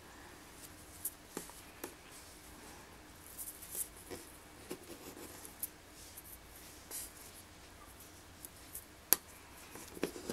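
Faint rustling and scraping of macramé cord being handled and pulled through knots over a paper sheet, with scattered small clicks, one sharper click about nine seconds in.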